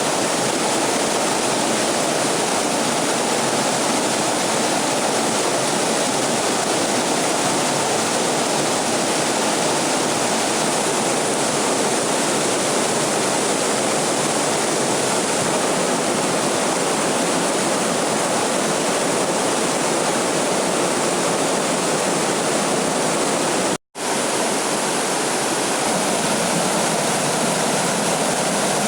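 Steady rush of water pouring over a waterfall, a constant dense roar with no break except for a split-second dropout about 24 seconds in.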